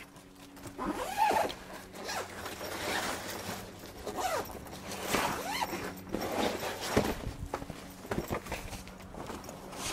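Zips on a folding fabric dog crate being pulled along, in several separate strokes.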